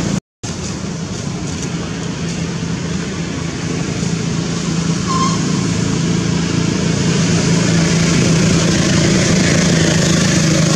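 Steady motor-like drone with a constant low hum and a hiss over it, growing slightly louder toward the end. It drops out for a moment at the very start, and one short high chirp comes about five seconds in.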